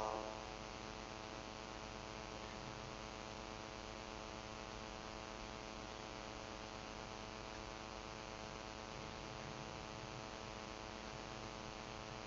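Faint steady electrical mains hum: a buzzing drone with many evenly spaced overtones, unchanging throughout.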